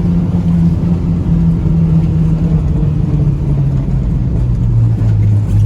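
Pickup truck being driven: a steady engine and road rumble, with the engine note sliding lower around the middle and then holding.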